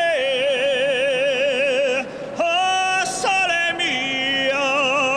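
A gondolier singing in an operatic style, holding long notes with a wide vibrato. He breaks for a breath about two seconds in.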